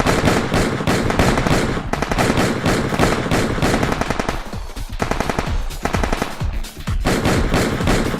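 Machine-gun fire sound effect: long bursts of very rapid shots, broken by two short pauses, one just past halfway and one about two-thirds through.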